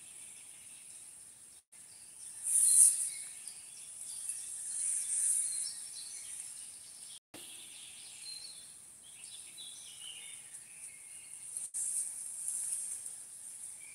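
Outdoor ambience with high-pitched chirping, swelling louder a few times, and three brief gaps where the sound cuts out completely.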